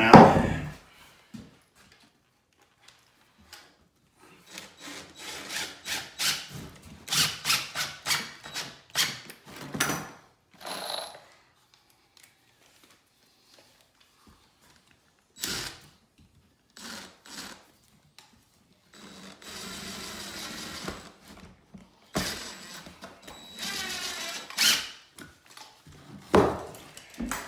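Knocks and scrapes of lumber being handled on a plywood subfloor, then a cordless drill running in short runs near the end, driving a screw into a 2x4 block.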